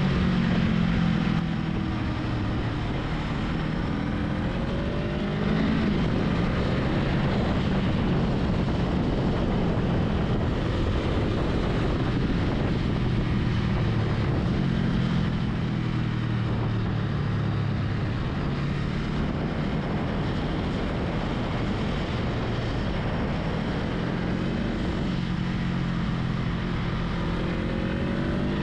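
Honda Rebel 500's parallel-twin engine running under way, its pitch climbing and easing with the throttle several times, over steady wind and road noise.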